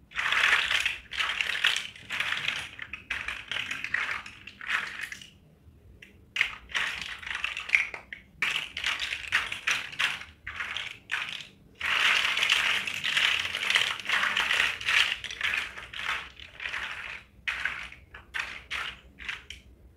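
Chunky hollow plastic toy building blocks clattering and knocking together on a tile floor as hands rummage through and spread the pile, in dense bursts with short lulls about five and twelve seconds in.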